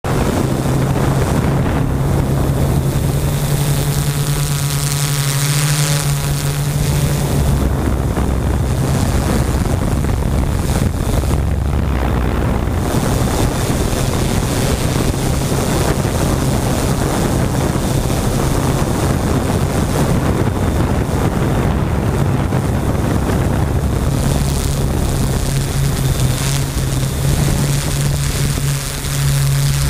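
Drone's propellers and motors humming steadily, heard through its onboard camera's microphone, with a low hum that shifts slightly in pitch and wind rushing over the microphone.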